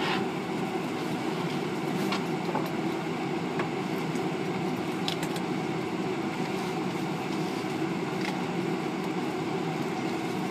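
Steady low rumble of airport terminal background noise, heard from behind the glass, with a few faint clicks.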